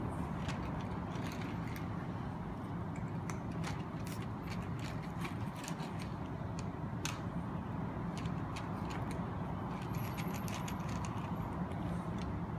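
Several cats crunching dry kibble: irregular short crunches and clicks over a steady low background rumble.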